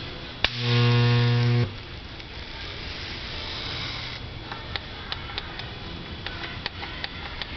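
Electric wire butt welder: a sharp click as the weld current switches on, then a loud, steady electrical buzz for just over a second that cuts off sharply when the current stops. A few scattered light ticks follow near the end.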